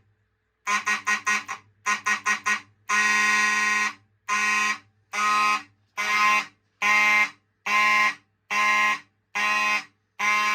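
Fire alarm horns blasting in coded patterns as a NAC coder switches codes: two quick groups of four short blasts, one long blast of about a second, then a steady march-time beat of about four blasts every three seconds.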